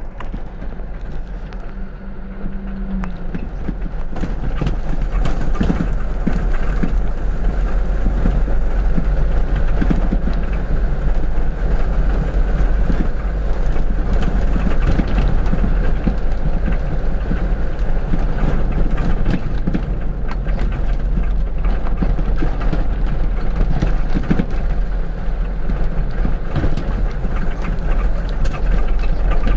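Vehicle travelling along a rough road: a steady, loud low rumble of engine and tyres with many small knocks and jolts, getting louder about four seconds in.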